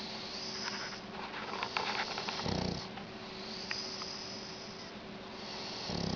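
Shar pei dog snoring: a low rattling snore about two and a half seconds in and another starting near the end, with a high hissing breath and some crackling clicks between them.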